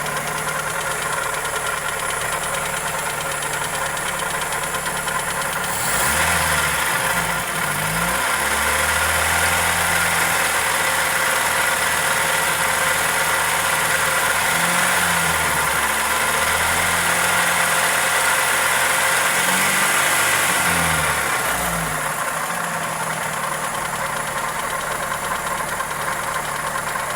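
Toyota 2E four-cylinder engine idling with a ticking and knocking, which the uploader puts down to either the valvetrain or a connecting rod. About six seconds in it is revved up and held at higher revs, dipping briefly a couple of times, then settles back to idle near the end.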